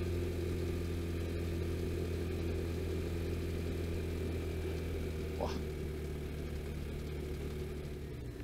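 Vespa GTS scooter's single-cylinder four-stroke engine running at a steady, even speed.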